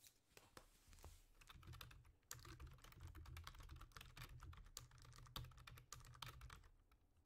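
Faint typing on a computer keyboard: a quick, uneven run of key clicks.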